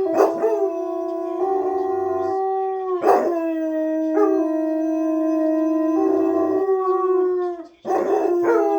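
Seven-month-old German shepherd puppies howling in long, steady held notes, two voices overlapping at times. The howling breaks off briefly and starts again twice, about three seconds in and near the end.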